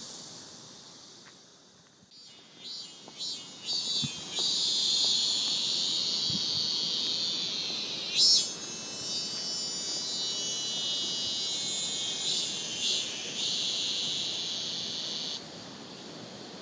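High-pitched buzzing chorus of insects. It fades away, swells back about two seconds in, and drops off abruptly near the end.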